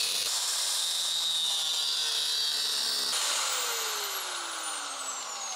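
Angle grinder with a cut-off wheel cutting through the rusted sheet-steel shock tower of a Mopar A-body, a steady high-pitched grinding. About three seconds in the wheel comes off the metal and the grinder winds down with a falling whine.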